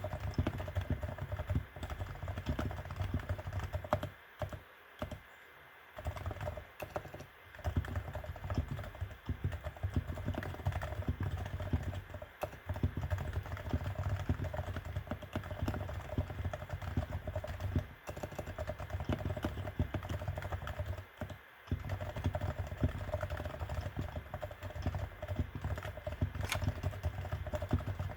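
Fast, continuous typing on a Realforce R2 TKL keyboard with silenced 45 g uniform Topre switches: a dense run of quick keystrokes, broken by a couple of short pauses about four to six seconds in and again near the twenty-one-second mark.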